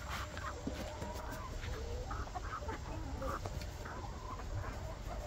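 A small flock of chickens clucking and chattering, short calls mixed with drawn-out murmuring notes, over a low rumble.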